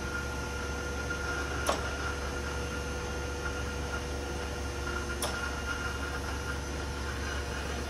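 Hydraulic system of an Okamoto 6" x 18" surface grinder running with a steady hum, spindle still off. A sharp click comes twice, about three and a half seconds apart.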